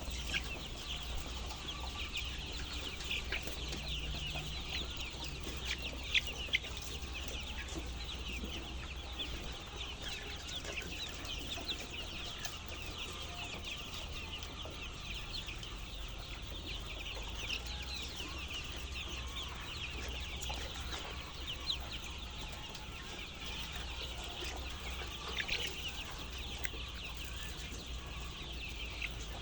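A flock of poultry-farm chickens calling continuously: many short, high, overlapping calls and clucks, over a steady low hum.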